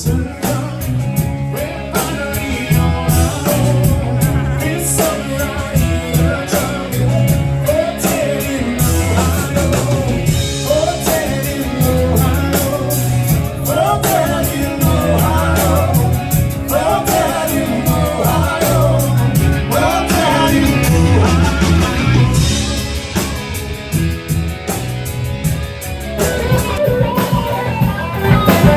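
Live rock band playing, with drum kit, bass and guitar, and a wavering lead melody on top.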